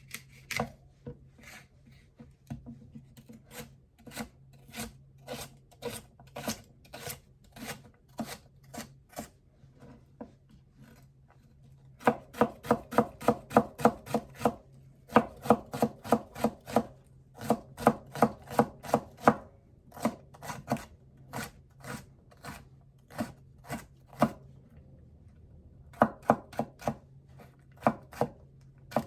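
Kitchen knife chopping celery on a cutting board in a steady rhythm of about three strokes a second, with a couple of short pauses. The strokes get louder about twelve seconds in.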